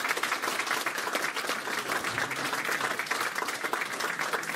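Audience applauding, many hands clapping at once, easing off slightly near the end.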